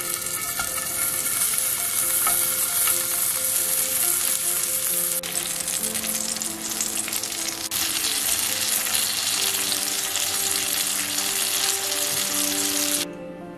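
Guanciale and tomato slices sizzling in hot fat in a frying pan, a loud steady hiss that cuts off abruptly near the end. Soft background music runs underneath.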